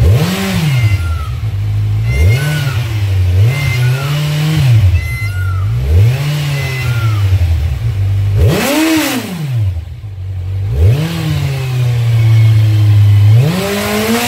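Kawasaki Ninja 1000SX's inline-four engine through its stock exhaust, idling with about seven throttle blips that rise and fall back to idle; the biggest rev comes about two-thirds of the way in.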